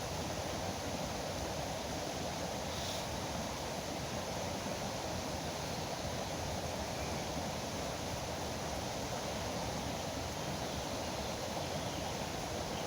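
River water rushing, an even, unbroken noise.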